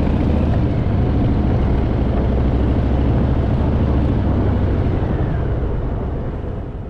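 Harley-Davidson Fat Boy's V-twin engine running steadily under way, fading away over the last second or so.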